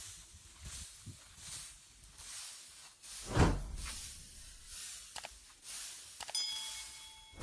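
Dry rice straw rustling and swishing as it is dragged and gathered with a wooden pole, in repeated strokes, with one louder swish about halfway through. Near the end come two clicks and a short chime.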